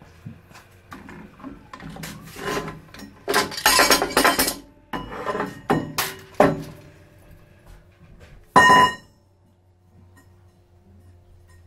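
Steel tube and metal parts handled on a drill press table: clinks and a scraping slide of metal on metal, then one sharp, ringing metallic clang a few seconds before the end.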